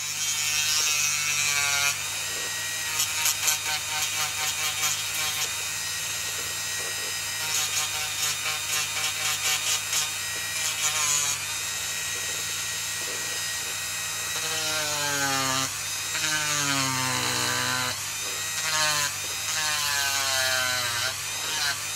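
Dremel rotary tool with a small cut-off disc running and cutting into a wooden lure body to mark the gills and mouth. Its pitch sags and recovers several times in the second half.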